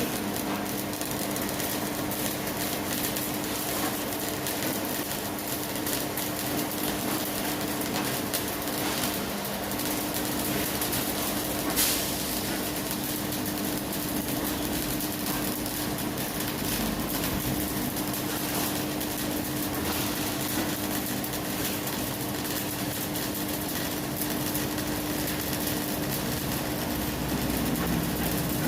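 Electric arc welding: a steady crackling, frying hiss, with a steady low hum underneath and one sharper crack about twelve seconds in.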